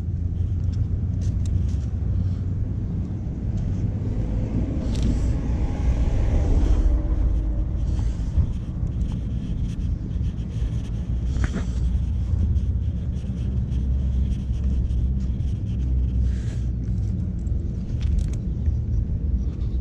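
Steady low street-traffic rumble, with a vehicle passing about five seconds in and a few short clicks later on.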